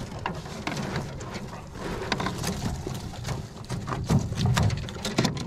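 Handling noise from a big white perch in a nylon landing net: rustling with irregular clicks, taps and knocks as the fish is held and worked free of the mesh, loudest near the end.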